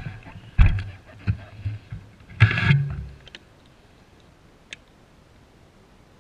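Bicycle rattling and knocking as it rolls over a bumpy dirt trail, a few sharp clattering jolts heard through the handlebar-mounted camera, loudest about two and a half seconds in. After about three seconds the bike stops and it goes quiet except for one small tick.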